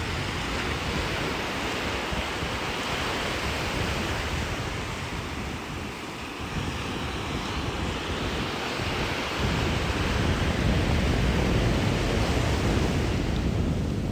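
Ocean surf washing onto the beach in a steady rush, with wind buffeting the microphone. The low rumble gets stronger about two-thirds of the way through.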